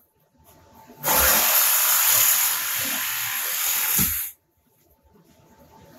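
Milwaukee M18 Fuel cordless reciprocating saw (Super Sawzall) cutting overhead into the ceiling. It starts about a second in, runs steadily for about three seconds, and stops just after four seconds.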